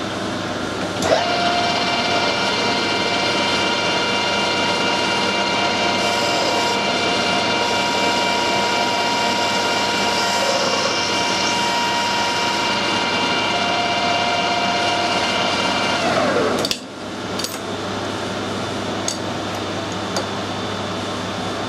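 Metal lathe starting up and running with a steady whine while it takes a final light cut down to the thread's root diameter. About 16 seconds in it is switched off and the whine falls away as it spins down, followed by a few light clicks.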